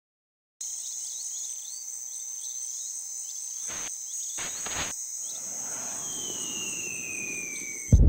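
Desert ambience with insects buzzing steadily and small repeated chirps, starting about half a second in, with two brief rushes of noise around four seconds. From about six seconds a long falling whistle descends, and right at the end a loud explosion blast breaks in.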